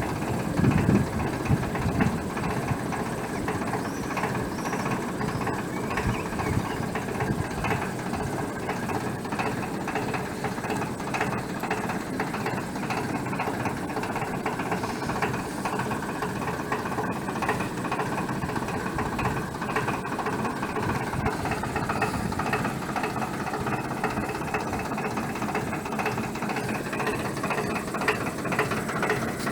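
Engine of a century-old work barge running steadily.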